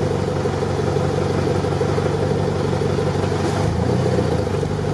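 Off-road vehicle's engine running steadily as it drives through a flooded, muddy track, heard from on board the vehicle.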